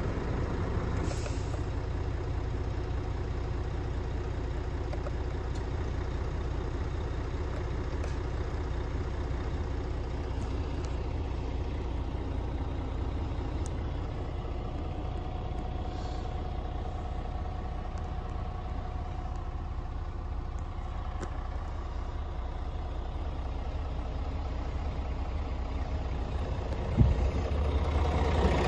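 Scania S450's 13-litre straight-six diesel idling steadily, heard from inside the truck's cab, with a sudden knock near the end.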